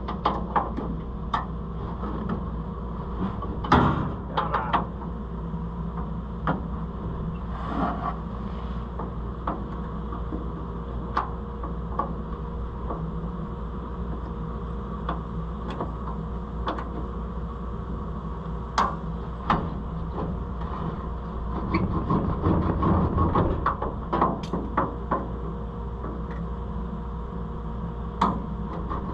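Scattered metal clinks and knocks from hand work on a combine's header chain parts, with a denser stretch of clattering about three quarters of the way through, over a steady low hum.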